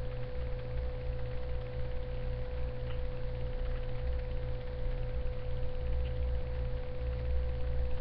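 A steady low electrical hum with a single constant tone held above it, with no speech.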